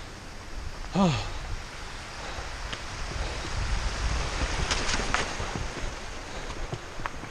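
Mountain bike riding a rough downhill trail: wind rushing over the microphone with tyres and bike rattling over rocks, in scattered knocks and clicks. A brief voice sound falling in pitch about a second in.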